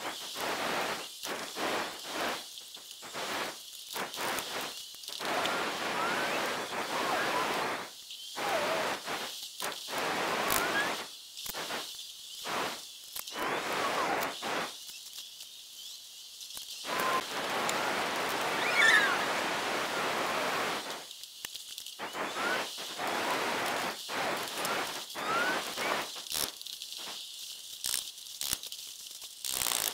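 Rustling and handling noise of hands working on a motorcycle frame and engine, broken into many short pieces that start and stop abruptly, over a steady hiss, with a few faint squeaks.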